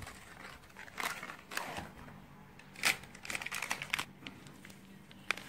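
Plastic spice packet being handled, crinkling and rustling irregularly with a few sharp clicks, loudest about three seconds in.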